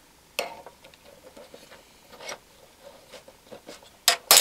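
Small metal clicks and taps from the coil spring, pin and toothed wheel of a paraffin heater's wick-adjuster mechanism as the spring's hooked end is worked onto its pin to re-tension it, with two loud sharp clicks close together near the end.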